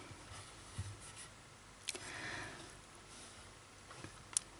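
Faint handling of a box camera's film-holder insert in gloved hands: a sharp click about two seconds in, a soft rustle after it, and another click near the end.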